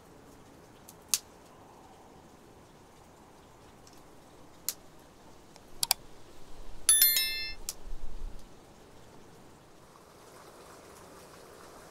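A few sharp, isolated clicks, then a cluster of knocks and a brief metallic ring about seven seconds in, as of a metal object being struck or set down, over a faint steady background.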